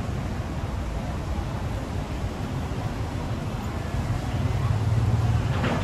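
Low, steady rumble of nearby road traffic, with one vehicle's engine growing louder over the last couple of seconds.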